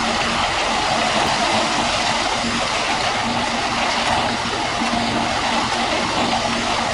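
Heavy construction machinery running steadily, a dense engine-and-machine noise with a faint hum that comes and goes.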